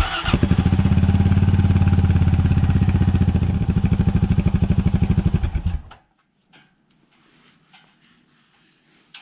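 Honda Pioneer 700's single-cylinder engine starting and idling with a rapid, even pulse, heard through a free-flowing aluminium exhaust tip temporarily bolted onto the stock muffler. It is switched off about six seconds in, and a few faint clicks follow.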